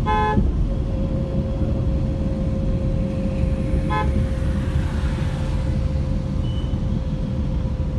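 Steady road and engine noise inside a Maruti Suzuki Alto's cabin in city traffic, with two short car-horn toots: one right at the start and a briefer one about four seconds in.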